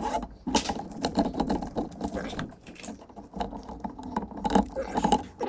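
Metal flex cable rattling and clicking in short, irregular bursts as its spiral steel armour is handled and gripped with pliers.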